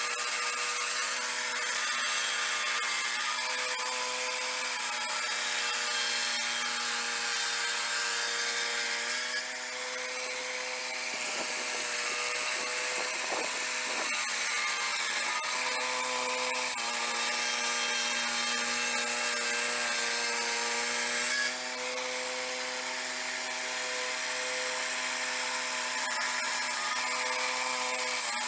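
Portable swing-blade sawmill's 13 hp engine running steadily at working speed while its circular blade saws along a log, the note shifting slightly a few times as the cutting load changes.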